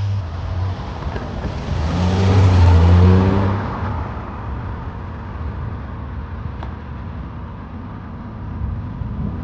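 BMW Z1's M20 straight-six engine running. Its engine note swells to a peak about three seconds in, then dies back to a steadier, lower sound.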